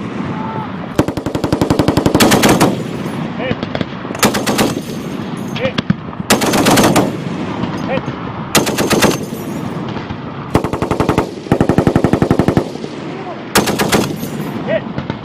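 Belt-fed machine guns, an M240 and an M2 .50-calibre heavy machine gun, firing short bursts. There are about seven bursts, each half a second to a second and a half long, with brief pauses between them.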